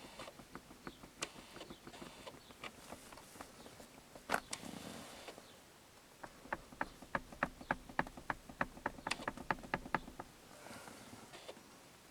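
BMW E38 7 Series headrest knocking: light, even knocks about four a second, fainter at first. One louder knock comes a little over four seconds in, then a run of louder knocks from about six and a half to ten seconds. The knock is an unwanted rattle from the headrest.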